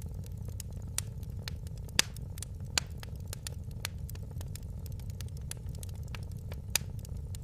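Wood fire in a fireplace crackling, with many small sharp crackles and four louder pops, over a steady low rumble of the burning fire.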